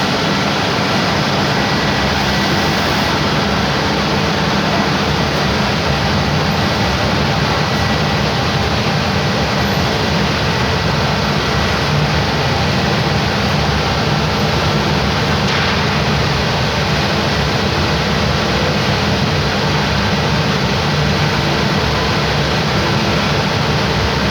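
CNC wood router running steadily as it machines wood: a loud, even mechanical noise with faint steady tones through it.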